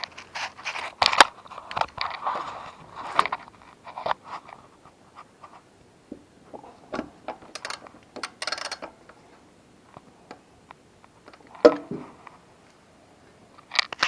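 Hand tools and metal parts being handled on a lawnmower: scattered clicks, scrapes and rustling, busiest in the first few seconds, with a short metallic rattle about eight seconds in and a thump near the end.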